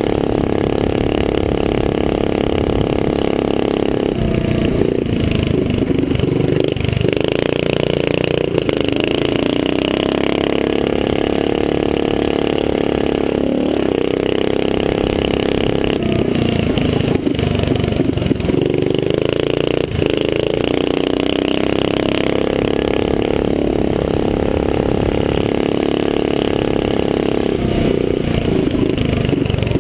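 Small mini-bike engine racing, heard from on board: it revs up and climbs in pitch, then drops off briefly several times as the throttle is rolled off and opened again.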